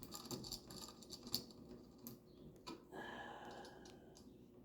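Wall light switch and its wires being handled and pushed into the electrical box: faint small clicks and taps, a few sharper, then a brief scrape near the end.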